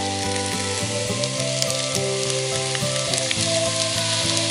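Eggs, shredded potatoes and mushrooms frying in a pan on a camp stove: a steady, even sizzle, with background music underneath.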